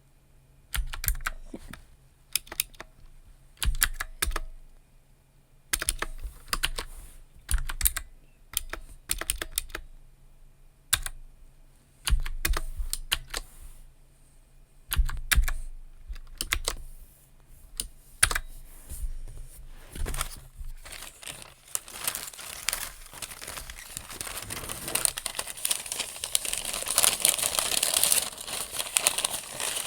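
Computer keyboard typing in short bursts of keystrokes separated by brief pauses. In the last third it gives way to paper crinkling that grows steadily louder.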